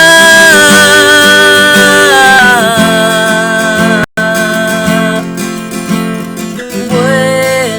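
Song with strummed acoustic guitar under a sustained melody line of long held notes that slide from pitch to pitch. The sound cuts out for an instant about four seconds in.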